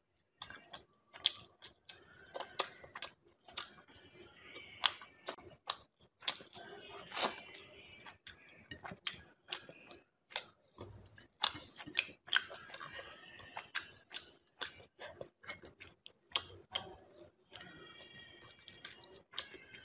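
Close-up eating sounds of someone chewing fish and picking through its bones with the fingers: many irregular wet clicks and smacks, several a second.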